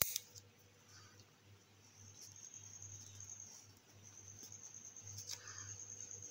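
A single sharp click at the start. Then quiet room sound with a faint, high-pitched, evenly pulsing trill from about two seconds in, and faint ballpoint pen strokes on notebook paper.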